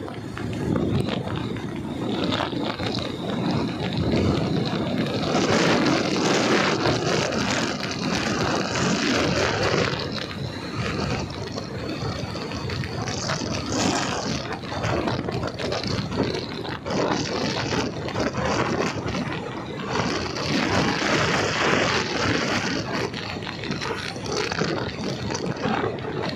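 Motorcycle riding along a road: engine and tyre noise under wind rushing over the microphone, a steady noisy hiss that swells louder for stretches.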